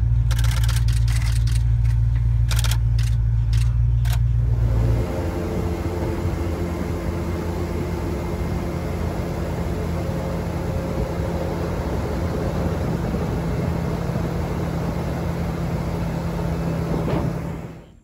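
Airboat engine and propeller running steadily at speed. The engine note changes and gets a little quieter about five seconds in, and the sound falls away sharply just before the end. A few sharp clicks come in the first four seconds.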